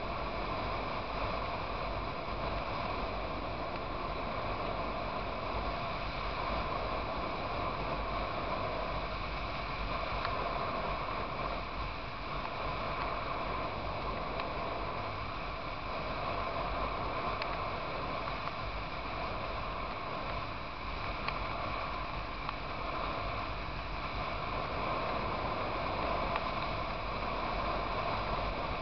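Motorcycle cruising at highway speed: steady wind rush over the microphone, with engine and road noise underneath.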